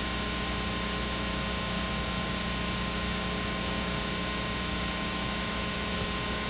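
Steady electrical mains hum with a faint hiss, unchanging throughout.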